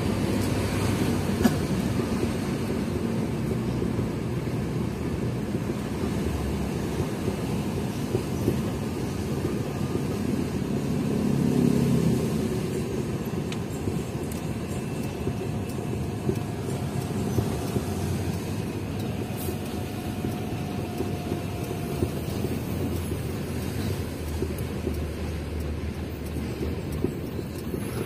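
UD Quester truck's diesel engine running on the road, heard from inside the cab as a steady low drone mixed with road rumble. The engine note swells briefly about eleven seconds in.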